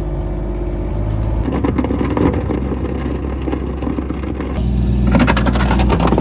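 Vehicle engine running under load while clearing snow off a gravel driveway, with rocks and gravel scraping and clattering as they are dragged up with the snow. The engine works harder and the clatter grows about four and a half seconds in.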